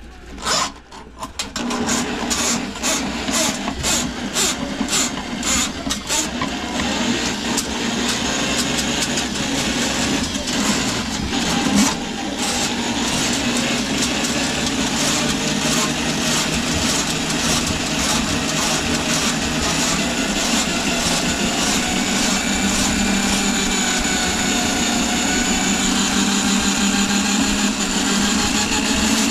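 Handheld power drum auger (drain snake) running, its cable spinning in a kitchen sink drain line clogged with grease. A fast run of clicks for the first few seconds, then a steady motor whine that wavers in pitch.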